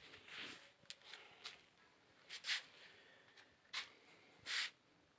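A few short rustles of fabric and handling noise as blankets are shifted around the kittens, the last near the end the loudest.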